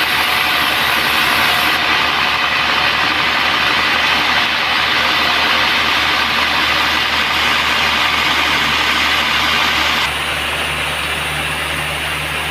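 Band sawmill running with a steady machine noise over a low hum. About ten seconds in the upper hiss drops away and it goes slightly quieter.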